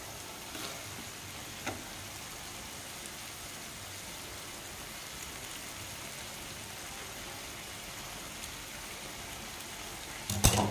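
Lemongrass-braised eel simmering in a metal wok with a low, steady sizzle. Two light clicks come in the first two seconds, and a sharp knock is the loudest sound near the end.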